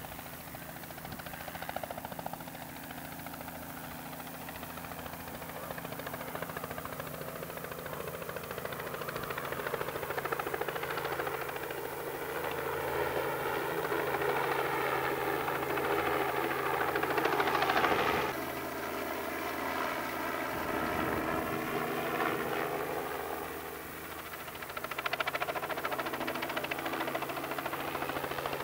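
Outboard motors of Thundercat inflatable race boats running at speed. The engine note builds to its loudest about 18 seconds in and drops in pitch as a boat passes close by, while other boats' engines keep running.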